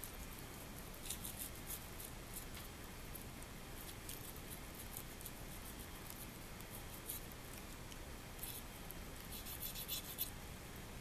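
Faint, scattered scratchy scrapes and clicks of a kitchen knife cutting and trimming raw beef tenderloin on a wooden cutting board, with gloved hands handling the meat; the scrapes come closer together near the end.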